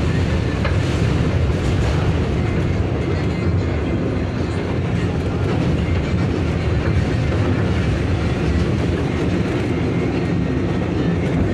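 A New York City 7 train subway car running along the track, heard from inside the car: a deep, steady rumble.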